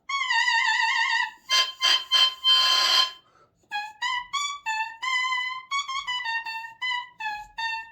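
Double reed of an oboe blown on its own, without the instrument, making its buzzy crow around one high pitch. A long wavering tone first, then a few rough squawks, then a string of short notes bent slightly up and down.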